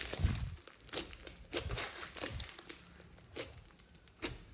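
Hands kneading and poking homemade slime packed with foam beads and glitter, giving irregular crackling, popping clicks and soft squishes.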